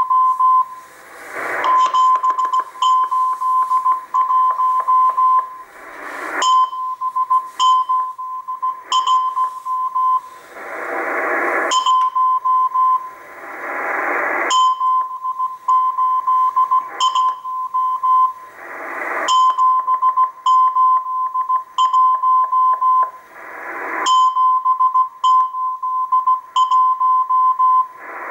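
Morse code from the Russian M12 number station, received on a Tecsun PL-880 shortwave radio in CW mode. A steady tone near 1 kHz is keyed in dots and dashes at about 17 words per minute. Swells of hissing static rise every few seconds and cut off.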